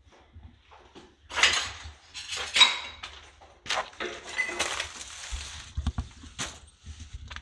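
Footsteps crunching and scraping over debris on the floor of a gutted house, with light clinks, in irregular steps.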